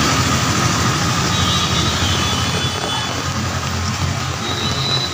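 A vehicle engine runs steadily, low, under a constant wash of noise from rain and water on a flooded street.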